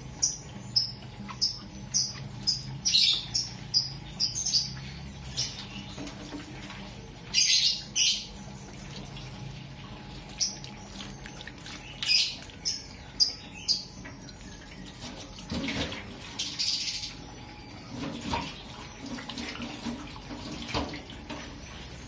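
Water splashing on a metal sink as a wet cat is washed by hand and rinsed with a hose, with many short, sharp splashes scattered throughout.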